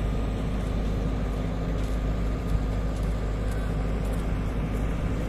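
Generators running with a steady low hum that drowns out the storm, with the surf of storm waves as a rushing noise beneath it.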